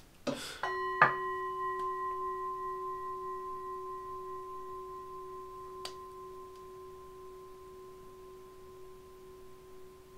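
A singing bowl struck about a second in, ringing with a steady low tone and fainter higher overtones that slowly die away. A light click about six seconds in.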